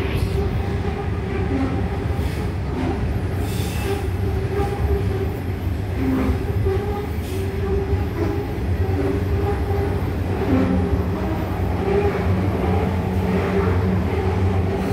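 Loaded coal train's hopper wagons rolling past close below: a steady rumble of wheels on rail with a constant hum and a few faint clicks.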